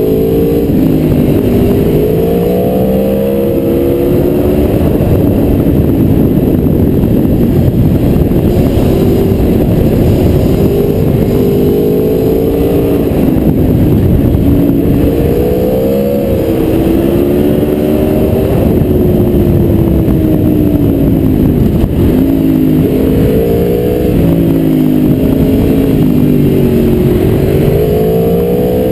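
Aprilia Tuono V4R's 65-degree V4 engine under way, its pitch repeatedly rising under throttle and dropping back at gear changes and when rolling off for bends, over heavy wind rush.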